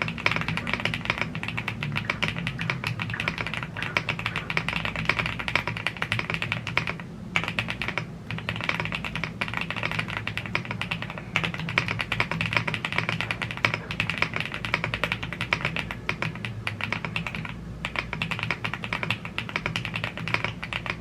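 Continuous fast typing on a YUNZII AL75 gasket-mounted aluminium mechanical keyboard with Blue Grey tactile switches and PBT keycaps: a dense run of keystroke clacks, broken by a few brief pauses.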